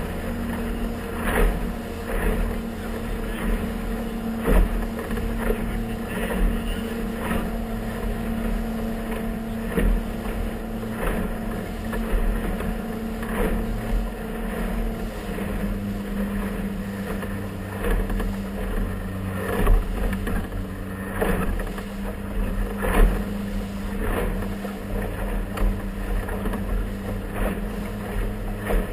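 Motorboat engine running steadily under way, its pitch shifting slightly about halfway through, with the hull knocking through the chop every second or two and wind on the microphone.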